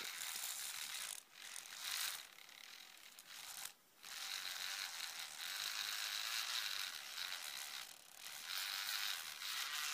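Small handheld electric rotary tool running with a high buzz, grinding and polishing the small metal parts of an N-gauge model locomotive with metal polish. The buzz drops away briefly three times.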